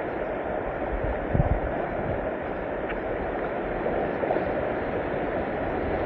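Rushing whitewater river: a steady, noisy rush of flowing water, with a few low thumps about a second and a half in.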